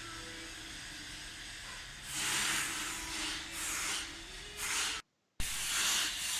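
Hissing in about four surges after a low steady hum, breaking off for a moment near the end.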